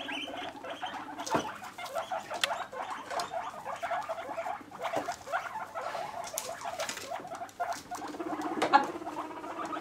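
Guinea pigs making a rapid run of short squeaks and chatters, with a low steady rumbling purr coming in near the end and a couple of sharp knocks.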